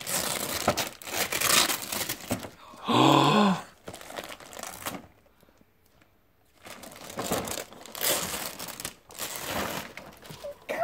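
Wrapping paper being torn and crumpled off a gift box in repeated ragged rips. A brief voice sound comes about three seconds in, and the sound drops out completely for about a second and a half near the middle.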